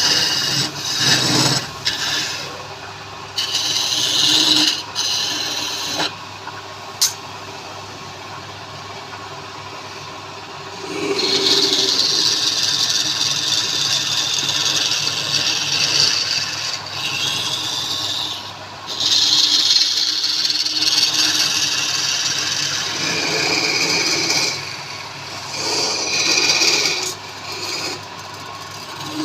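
Wood spinning on a woodturning lathe being scraped by a tool pressed against it, in passes a few seconds long with short pauses between them, over a faint steady hum.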